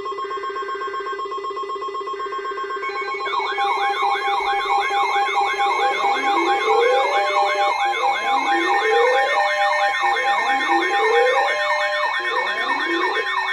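Layered electronic alert tones. A steady alarm tone is joined about three seconds in by a fast warbling siren wail, about three wobbles a second, and from about six seconds by rising whoops repeating roughly every two seconds. The sound gets louder as the layers stack up.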